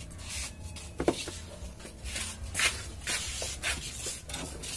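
Soldering work on a CRT TV's circuit board: a string of short rubbing and hissing noises, with a sharp click about a second in, over a low steady hum.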